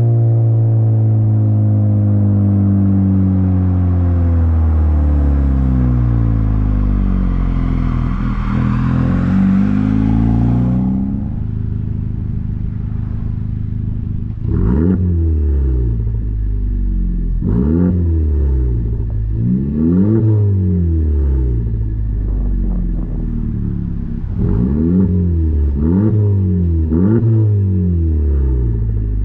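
2020 Honda Civic Type R's turbocharged four-cylinder through a muffler-and-resonator-delete exhaust. The engine note falls steadily for about ten seconds as the revs drop, settles briefly, then rises and falls in a string of quick throttle blips.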